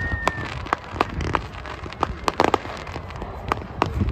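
Fireworks going off: an irregular string of sharp bangs from aerial shells bursting, about four a second, over a steady crackle, with a brief whistle at the very start.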